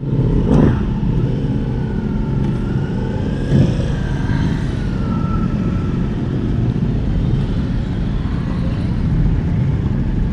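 Motor vehicle on the move: a steady, loud rumble of engine and wind or road noise. Brief louder sounds come about half a second in and again about three and a half seconds in.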